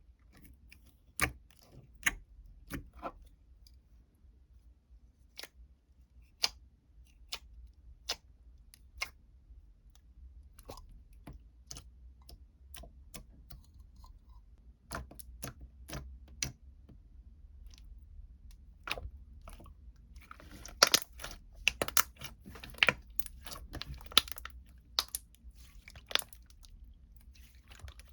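Close-miked crunching and chewing of crisp food: scattered single crunches and clicks, then a dense run of louder crunches about two-thirds of the way through.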